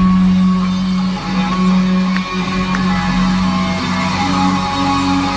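Live concert music led by electric guitar holding long sustained notes, heard from the audience across a large arena.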